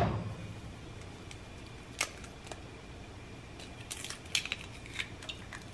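A single small click, then a cluster of light clicks and crackles as an eggshell is cracked and pulled apart over a frying pan, about four to five seconds in.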